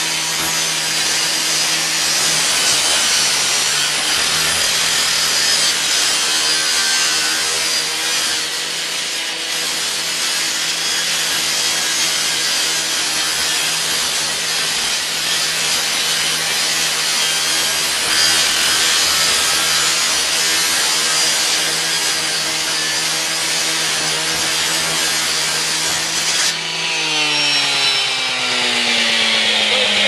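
Gas-powered Stihl rotary cut-off saw cutting through the sheet-metal panels of a garage door, a loud steady high grinding hiss over the running engine. About 26 seconds in the cut stops and the engine winds down, its pitch falling.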